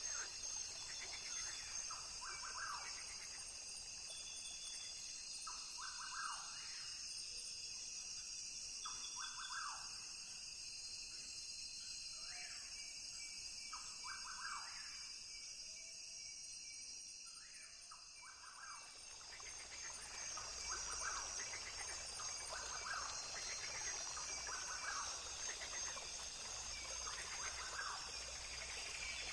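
Rainforest ambience: a steady high-pitched insect chorus, with short calls repeating every second or two over it. The calls thin out for a few seconds a little past halfway, then come back.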